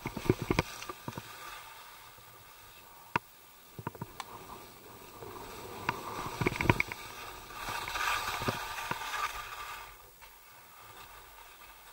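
Skis sliding and scraping over firm snow, with scattered sharp clicks and knocks and a longer hissing scrape about eight seconds in.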